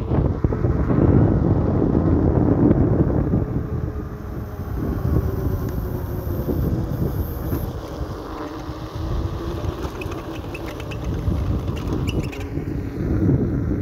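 Wind rushing and buffeting over the microphone as a Begode T4 electric unicycle is ridden at around 30 to 40 km/h.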